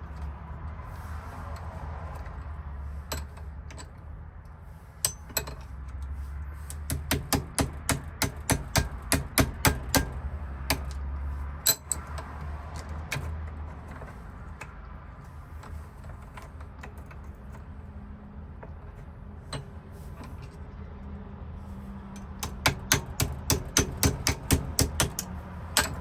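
Quick runs of light metallic taps and clicks, about three to four a second, from a Ford F-150 ignition lock cylinder being worked with small tools. The first run starts about seven seconds in and the second comes near the end, over a steady low hum.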